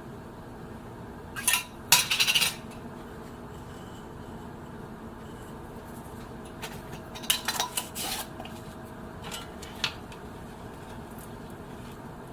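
Dishes and cutlery clinking in short clusters: a run of clinks about one and a half to two and a half seconds in, another around seven to eight seconds, and two single taps near ten seconds, over a steady background hum.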